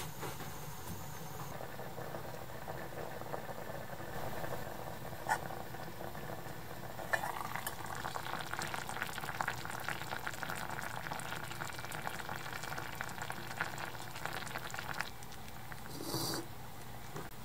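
Tsumire hot pot simmering in a thin aluminium pot on a gas burner: a steady bubbling that turns louder and crackly once the lid is lifted, about seven seconds in, and eases off again a couple of seconds before the end. Shortly before the end there is a brief knock.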